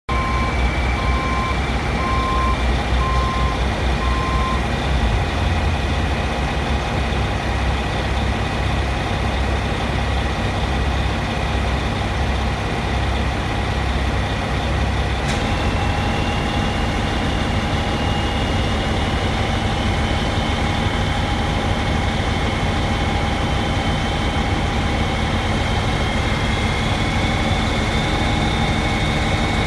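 Mobile crane's engine running steadily while it hoists a glass panel, with a high whine that climbs slowly in pitch over the second half. A backup alarm beeps a few times at the start, and there is one sharp click about halfway.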